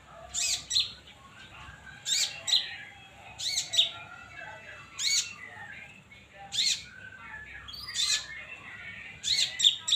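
Songbird calling: loud, sharp high chirps that sweep quickly in pitch, some doubled, repeated about every second and a half over softer background chirping.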